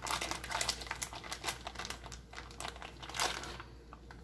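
Plastic bag crinkling as it is handled, a dense run of small crackles that thins out about three and a half seconds in.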